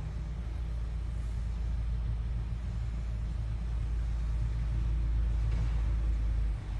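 Diesel engine of a heavy Peterbilt tow truck running as it pulls forward, a deep rumble that grows louder as it nears and drops off abruptly near the end.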